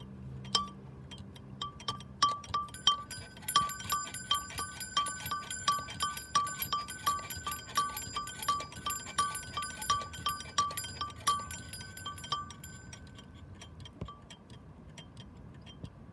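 Terracotta flower-pot bell swung by its rope, the clapper striking about twice a second: the strokes start a couple of seconds in, ring steadily, then thin out and stop as the swing dies down. A second, higher-pitched bell rings along with it through the middle.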